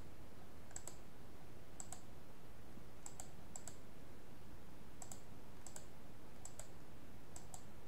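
Computer mouse button clicking: about eight short, sharp clicks, several as quick doubles, spaced roughly a second apart.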